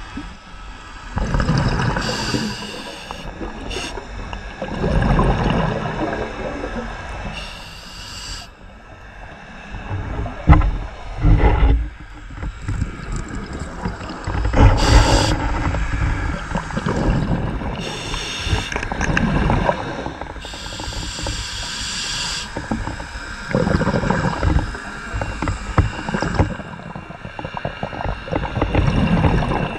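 Scuba diver's regulator breathing underwater: a hissing inhalation, then a long rumble of exhaled bubbles, in a cycle about every five to six seconds.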